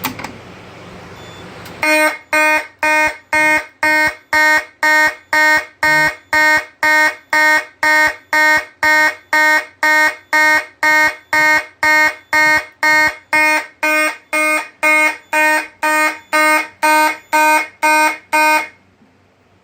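A click, then a Simplex 2901-9806 fire alarm horn sounds in march time: loud, evenly spaced blasts at about two a second, beginning about two seconds in and cutting off abruptly near the end.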